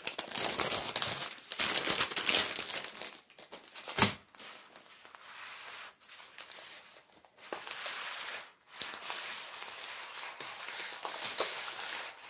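Clear plastic bags crinkling as they are handled: a bag full of small packets of diamond painting drills being turned over and sorted. The crinkling comes in uneven spurts, with one sharp crackle about four seconds in.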